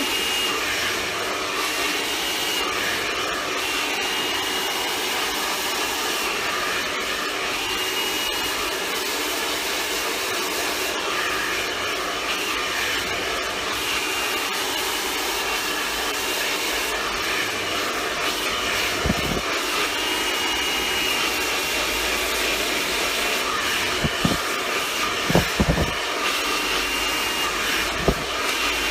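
Handheld hair dryer running steadily, blowing on wet hair during a blow-dry, with a faint high whistle that comes and goes. A few short knocks sound in the last third.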